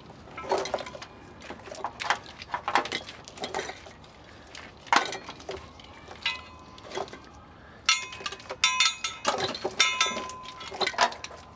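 Old steel fuel lines clinking and scraping against metal as the line assembly is worked loose and pulled out from under the truck. Scattered light knocks, then several ringing metallic clinks in the last few seconds.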